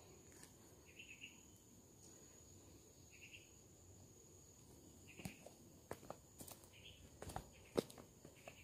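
Faint footsteps on concrete trail steps, a handful of light scuffs and taps in the second half, over a steady high insect whine from the forest and a few short chirps about two seconds apart.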